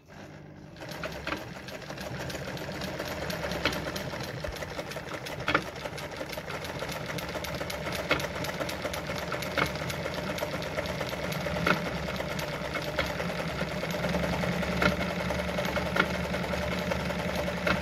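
Brother Pacesetter ZZ2-B702F sewing machine running steadily, starting about a second in, as it sews a zigzag stitch through denim: a fast, even needle clatter over the motor hum, with a few sharper clicks along the way.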